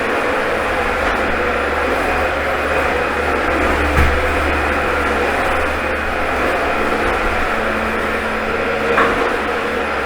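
Dyson vacuum cleaner running steadily, a whining motor hum over the floor, with a brief knock about four seconds in.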